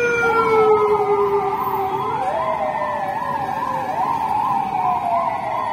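Sirens of a police convoy, loud: one siren warbling rapidly, about two to three times a second, over other siren tones that slowly fall in pitch and jump back up twice.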